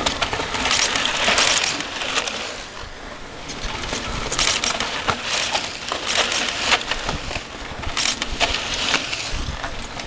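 Mountain bikes passing close one after another on a dirt and gravel singletrack, each a short rush of knobby tyres crunching over the ground, with clicks and rattles from the bikes between passes.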